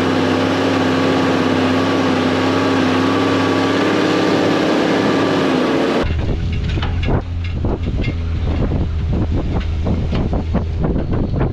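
A steady motor hum with hiss for about six seconds, then a sudden change to a vehicle driving over rough ground: a low engine hum with many short knocks and rattles.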